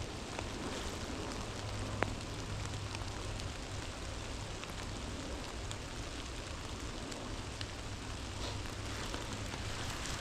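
Light rain pattering, with scattered small drop ticks and one sharper tick about two seconds in, over a steady low rumble of distant highway traffic.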